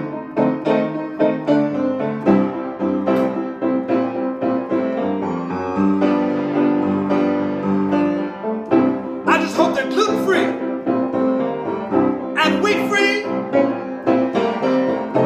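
Upright piano played solo in a blues, an instrumental break between sung verses. The playing turns brighter and busier twice in the second half.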